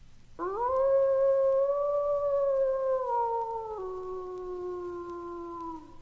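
A single wolf howl: one long call that rises quickly at the start, holds steady, then drops in pitch in two steps in its second half before stopping.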